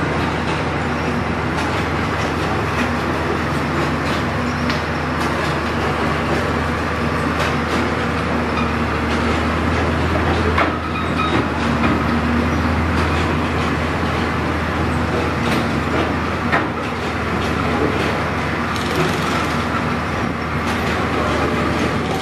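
A track-laying train's engine running with a steady low drone, with scattered metallic clicks and knocks over it.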